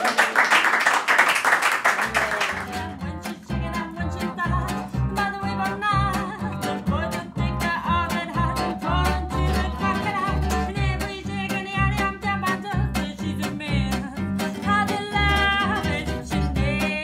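A small audience clapping, which stops about two seconds in; then acoustic swing music with a repeated plucked bass line and guitar.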